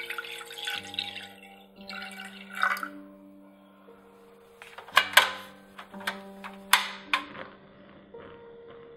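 Liquid stock poured into a stainless steel saucepan, splashing for the first three seconds, over soft background music. Several sharp clicks follow about five to seven seconds in.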